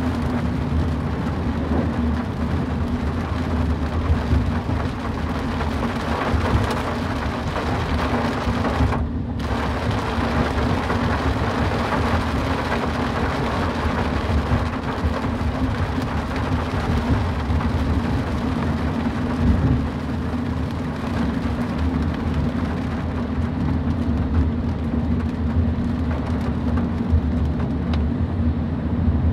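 Rain falling on a moving car, with a steady low rumble from the car and its tyres on the wet road under the hiss of the rain. The hiss briefly cuts out about nine seconds in.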